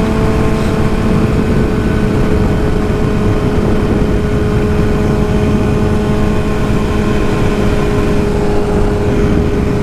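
Sport-bike engine running at a steady, unchanging engine speed while the motorcycle cruises, under a constant rushing noise.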